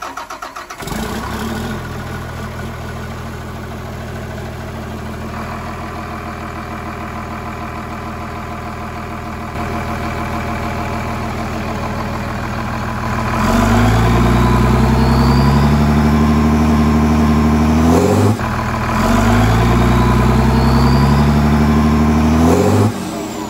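Heavy bus diesel engine idling steadily, then twice revved up and held at high speed under load for about four seconds each while tugging a stuck school bus out of mud. A faint rising whine comes with each pull.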